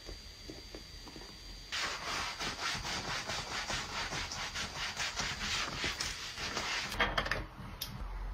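Soft brown mitt rubbed briskly back and forth over a bare forearm, spreading body lotion: a rapid scrubbing swish of quick, even strokes starting about two seconds in. It stops about a second before the end, leaving a few light clicks.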